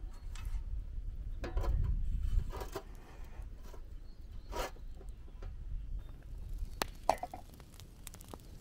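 Large thin metal tray handled on a wooden table, giving several short ringing, wobbling tones and a few knocks and clinks. A low rumble runs underneath.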